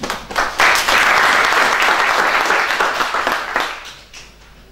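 Audience applauding: many hands clapping, dying away about four seconds in.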